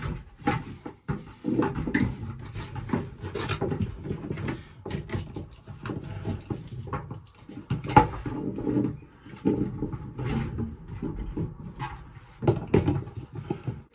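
Irregular knocking, scraping and rustling as hands work a plastic shower waste pipe and fitting under a shower tray, through a hole in a plywood floor, mixed with a man's effortful grunts and breaths.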